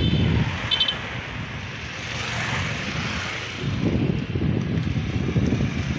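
Street traffic with wind buffeting the microphone in gusts, and a short horn beep about a second in.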